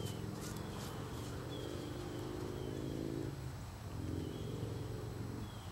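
A horse moving on arena sand, its hoofbeats soft under a steady low rumble. A bird gives short falling chirps several times.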